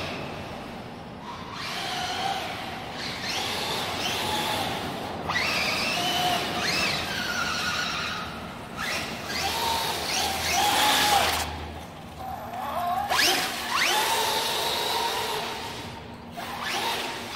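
Electric motors of radio-controlled Traxxas trucks whining, the pitch rising and falling again and again as they are throttled up and let off while drifting.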